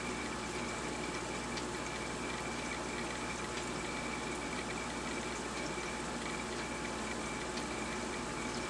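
Steady rush of water circulating in a large aquarium, from its filter or pump running, with a faint high whine alongside.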